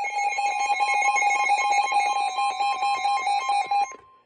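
Emergency Alert System two-tone attention signal from a radio broadcast: two steady tones sounding together in a harsh, buzzing dual tone that cuts off about four seconds in. It announces an emergency alert about to be read out.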